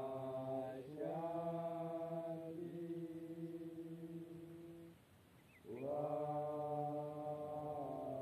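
Boboshanti liturgical chanting in long, drawn-out held notes. There are two phrases, with a short break about five seconds in.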